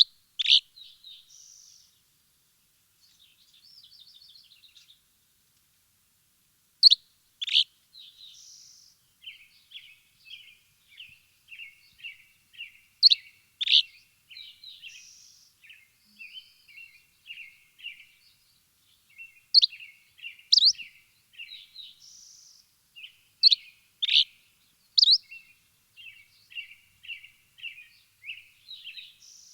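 Birds chirping: loud, sharp chirps come in pairs every several seconds, with a softer run of quick, short notes between them.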